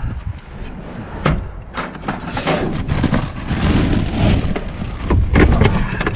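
Light aluminum scrap clattering and rattling in a run of quick knocks and clanks, with a low rumble building near the end.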